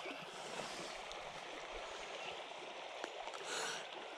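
Shallow river running over stones: a steady, even water noise, with a short whoosh about three and a half seconds in.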